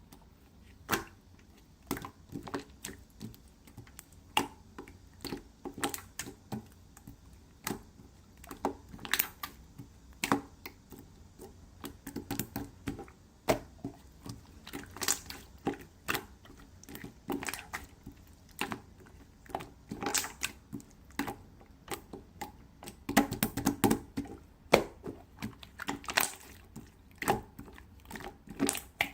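Glossy, syrupy slime being pressed, poked and stretched by hand, giving irregular sticky clicks and pops, with a denser run of crackling pops about 23 to 25 seconds in.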